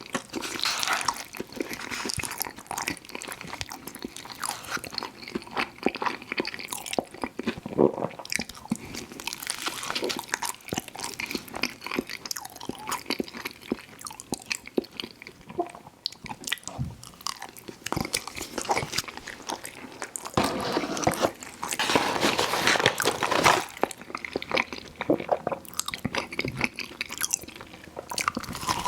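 A person biting and chewing crunchy fried food, with many sharp crackling crunches. The crunching grows louder and busier for a few seconds about two-thirds of the way through.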